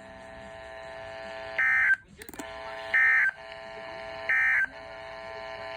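EAS end-of-message data bursts from a NOAA Weather Radio: three short, identical digital warbling chirps, a little over a second apart, marking the close of the severe thunderstorm warning broadcast. A faint steady hum from the radio fills the gaps between them.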